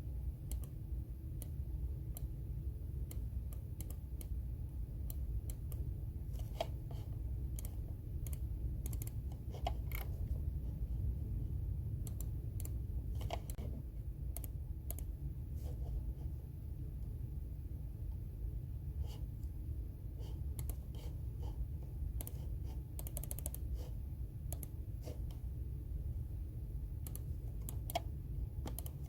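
Computer keyboard typing: irregular runs of key clicks with short pauses between, over a steady low hum.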